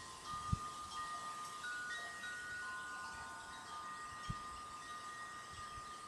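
Wind chimes ringing, several clear tones at different pitches sounding one after another and overlapping as they fade slowly. Two short dull low thumps, about half a second in and just after four seconds, the first the loudest moment.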